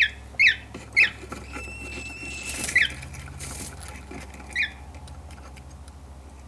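Baby cockatiel fledgling giving short, sharp, downward chirps, five in all: three about half a second apart at the start, then two more spaced out. These are the chick's food-begging calls. A brief soft rustle comes in the middle.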